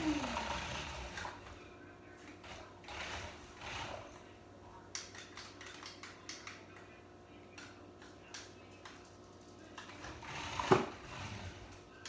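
Toy RC car's electric motor whine winding down at the start, then scattered light rattles and clatter, and one sharp knock about ten and a half seconds in.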